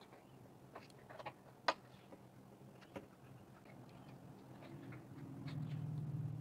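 Scissors snipping out a marked corner notch from a sewn bag's leather and fabric seam: a few short, sharp clicks of the blades in the first three seconds. A low steady hum comes in near the end, followed by a sharp click.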